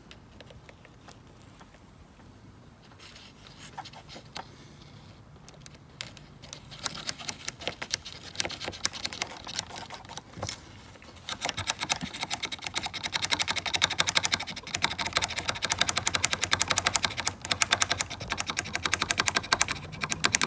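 Soldering iron tip scraped rapidly back and forth on a relay's metal contact face, a dense run of fast scratchy clicks that starts faintly about a third of the way in and grows much louder from about halfway. The iron is abrading the surface to clean it while heating it for soldering.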